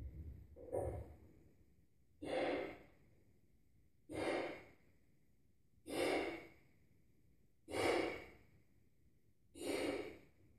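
A man blowing up a rubber balloon by mouth: five heavy breaths, one about every two seconds, each starting sharply and fading within a second, as the balloon is inflated.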